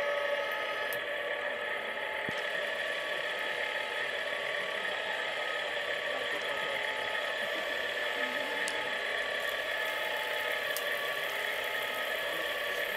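Radio-controlled model fire trucks running, a steady engine-like drone and whir with several held tones.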